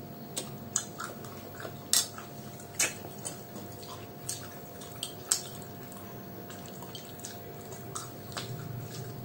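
Eating sounds: scattered sharp clicks and crunches of fried pakoras, chickpeas and peanuts being chewed and picked off plates, about a dozen irregular ticks over a faint steady hum.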